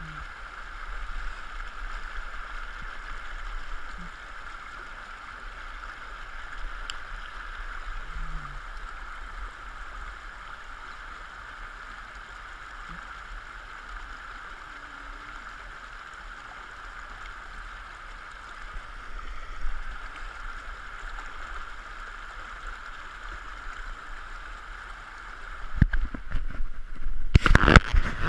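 Shallow stream running over stones in a riffle: a steady rushing of water. Near the end, loud rubbing and bumping right on the microphone as the body-worn camera is moved.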